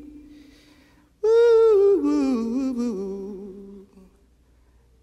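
A solo singing voice, unaccompanied, holds a long "ooh" that begins about a second in and winds downward in pitch, dying away near the end. Before it, only the fading tail of the previous sung note is heard.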